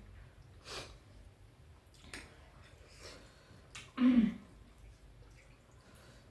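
Close-up eating sounds: scattered wet chewing and lip-smacking clicks from someone eating pork. About four seconds in comes a louder, short vocal sound that falls in pitch.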